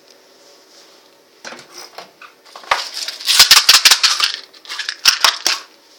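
Toothpick scraping and clicking at the stuck cap of an acrylic paint bottle: a quick run of sharp, scratchy clicks starting about a second and a half in.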